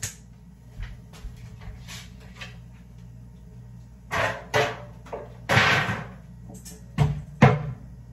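Kitchen cupboard doors and cookware being handled: a few light knocks, then louder knocks and clatter, a longer rattling scrape about halfway through, and two sharp knocks near the end.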